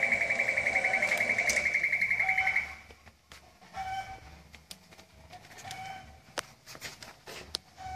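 Hashima conveyor metal detector's alarm buzzer sounding a rapid, pulsing high beep that cuts off about two and a half seconds in, the signal that metal has been detected in the test pack. After that, only faint clicks and short soft tones.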